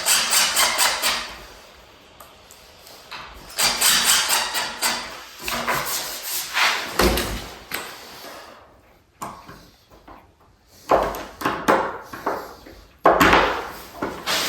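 Cordless drill with a self-centering bit running in short bursts, drilling pilot holes for the deadbolt strike plate screws, with clicks and knocks of hardware between bursts.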